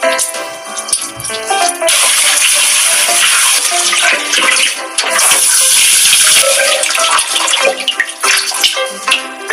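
Kitchen tap running water into a stainless steel bowl in the sink while flour-coated octopus is rinsed, starting about two seconds in and easing off near the end. Light background music plays throughout.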